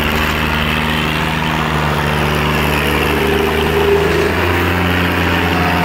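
Tractor diesel engine running steadily, with no change in speed.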